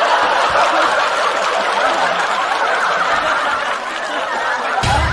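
Studio audience laughing steadily as a crowd, in a continuous wash of laughter.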